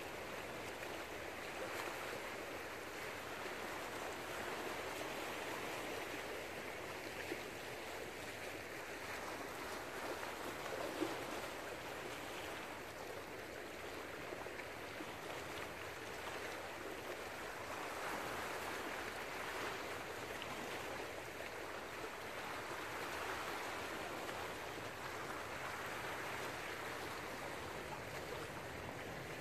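Small sea waves washing and lapping over shoreline rocks, a steady, gently swelling wash. A brief tick sounds about eleven seconds in.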